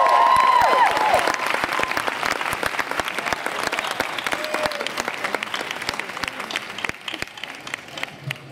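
Large audience clapping and cheering, with shrill whoops in the first second; the applause then thins and fades.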